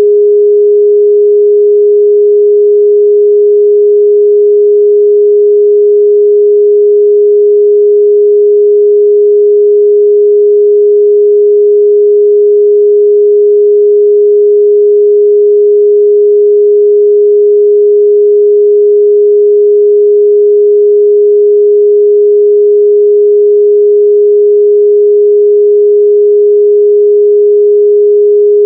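A pure 414 Hz sine-wave test tone, held loud and perfectly steady with no other sound.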